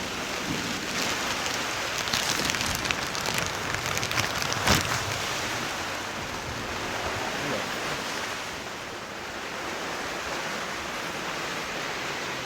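Heavy rain and wind: a steady rushing hiss with the patter and clicks of raindrops, denser in the first half. One sharp knock about four and a half seconds in.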